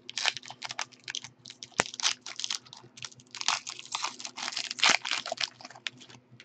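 Foil wrapper of a baseball card pack crinkling and crackling in a rapid, irregular patter as it is peeled open by hand.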